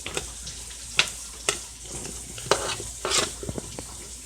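Utensil scraping and knocking against a dish as oiled, seasoned butternut squash pieces are mixed, with sharp clacks about once a second over a steady frying sizzle.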